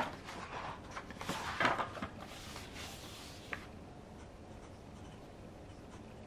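A Tsubame paper notebook being opened and pressed flat by hand: paper rustling and a few light knocks of the cover and pages for about the first three and a half seconds, then quiet.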